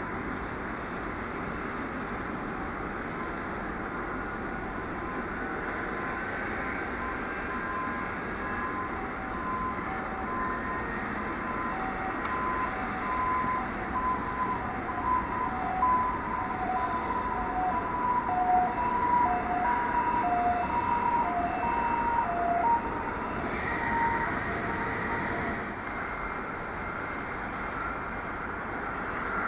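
Steady jet airliner engine noise on an airport apron. From about eight seconds in to about twenty-three seconds, a repeating two-pitch beeping tone rides over it, and a faint rising whine shows near the start of that stretch.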